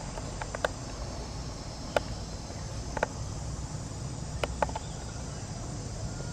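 Steady high chirring of insects in the background, with a few short sharp clicks about half a second, two, three and four and a half seconds in.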